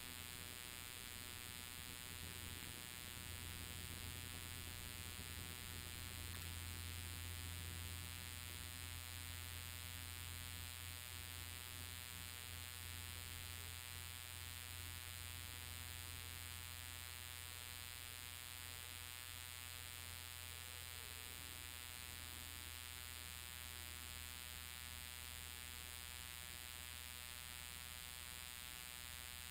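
Steady low drone of a 1955 Cessna 180's engine and propeller in cruise, heard from inside the cockpit as a muffled, even hum with a strong low note, swelling slightly a few seconds in.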